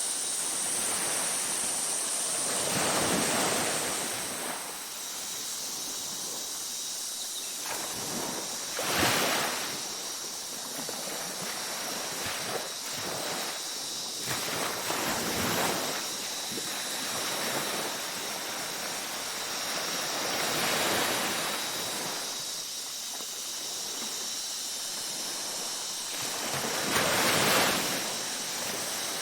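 Ocean waves breaking on a beach, a swelling rush of surf about every six seconds. Faint steady high-pitched tones run underneath.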